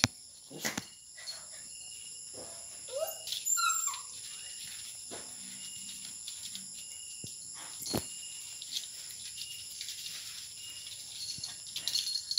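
Dogs play-fighting on a floor mat: a few sharp knocks and scuffles, and one short rising whine from a dog about three seconds in. Insects chirp steadily in the background.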